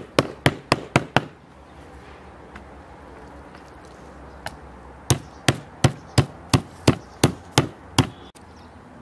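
Metal meat tenderizer mallet pounding raw meat slices flat on a wooden cutting board, about three blows a second. A short run of blows opens, then a pause of about four seconds, then another run of about nine blows.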